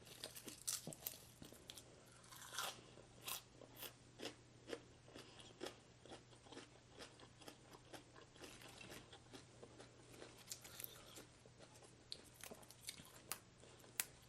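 Close-miked eating: a person chewing and crunching a mouthful of rice noodles in curry with fried chicken skin and fresh vegetables, with irregular short crisp crunches and mouth smacks, one or two a second.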